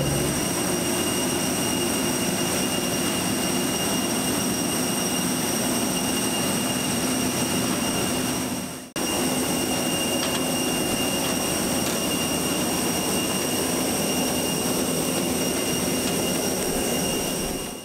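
Steady vehicle running noise: a constant rumble and hiss with a thin high whine over it. It dips out briefly about halfway through, then carries on the same.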